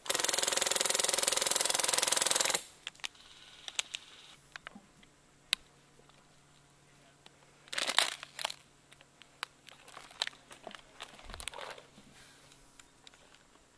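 An airsoft rifle firing one long full-auto burst of about two and a half seconds, very fast and even, that starts and stops abruptly. After it come scattered clicks and gear rustle, with a short flurry about eight seconds in.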